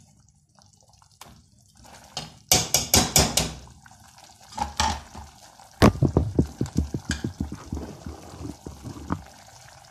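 Mashing and stirring a thin potato curry in an aluminium pot: a cluster of knocks and clinks against the pot a few seconds in, then from about halfway a quick run of wooden-spoon stirring strokes through the liquid, about four a second.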